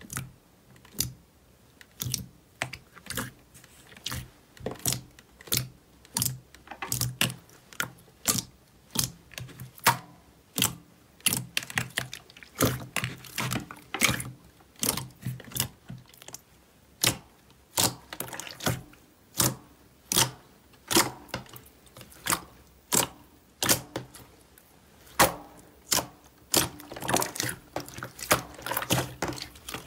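Glossy slime squeezed and pressed by hand in a plastic tub, giving a run of wet clicks and pops from trapped air, about one or two a second.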